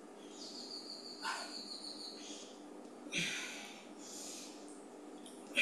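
A woman breathing hard through weighted lunges: a few short, forceful exhales, the one about three seconds in the loudest.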